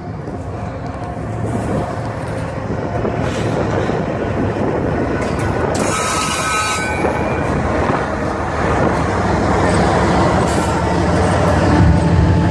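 GE ES44AC diesel-electric locomotives, with V12 diesel engines, pulling a freight train close past: a steady low engine drone that grows louder as the units come alongside. There is a brief hiss about six seconds in.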